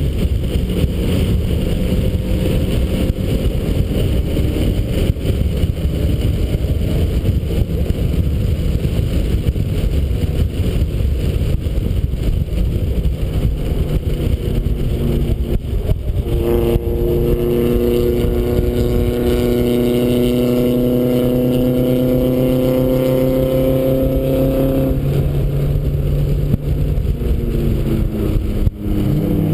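1991 Mazda Miata's 1.6-litre four-cylinder engine running hard at track speed, under heavy wind rush. About halfway through the engine note settles into a steady held pitch. It falls away near the end, breaks off briefly, then climbs again.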